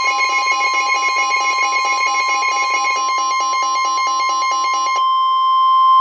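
Midland NOAA weather radios sounding a flash flood warning alert: a loud, steady, piercing warning alarm tone with rapid pulsing alarm beeps over it. The beeping stops about five seconds in, leaving the steady tone alone.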